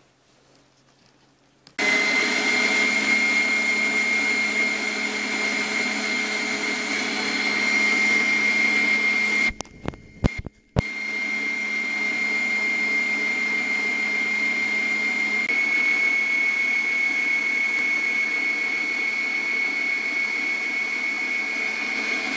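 Electric stand mixer running steadily as it beats butter and sugar, a high even whine over the motor hum. It starts about two seconds in, cuts out briefly around the middle, then runs on and stops suddenly near the end.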